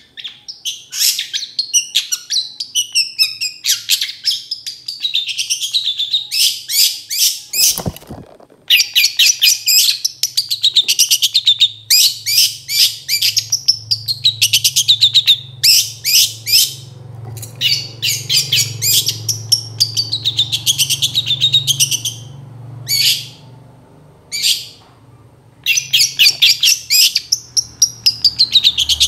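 Long-tailed shrike (cendet) singing loudly in fast runs of sharp, chattering notes mixed with sweeping whistled glides. The runs stop in short gaps a few times.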